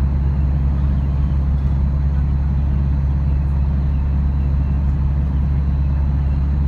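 Steady low rumble of road and engine noise inside a car cabin cruising at highway speed.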